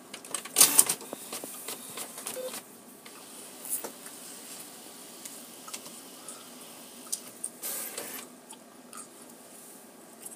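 HP inkjet all-in-one printer printing: the carriage and feed rollers whirring and clicking, with two short louder rushes, about half a second in and near eight seconds.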